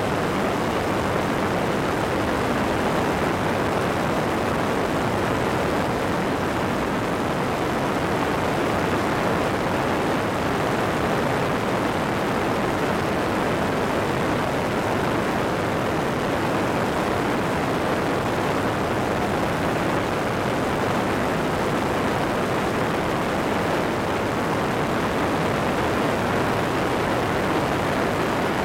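Steady in-flight noise of an Airborne weight-shift microlight trike: engine and propeller drone blended with airflow rushing over the wing-mounted microphone into one constant rush.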